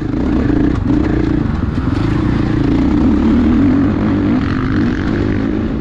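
Husqvarna FC450 dirt bike's single-cylinder four-stroke engine running steadily under throttle, heard from the rider's seat, its note wavering slightly up and down.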